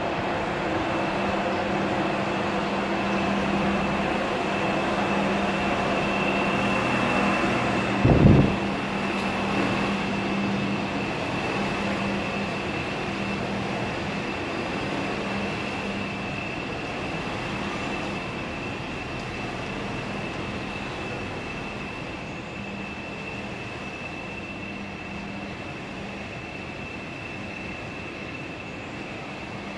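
Steady mechanical hum of a railway station, with a thin high steady whine over it and a single thump about eight seconds in; the hum grows fainter through the second half.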